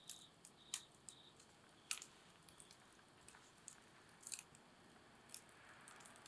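Wood campfire crackling: irregular sharp pops and ticks from the burning wood, a dozen or so, over a faint steady hiss.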